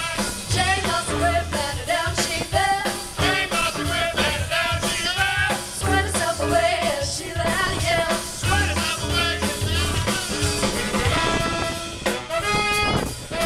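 Live swing band playing, with upright bass and drum kit keeping the beat under women's voices singing in close harmony; about twelve seconds in, a held saxophone note stands out.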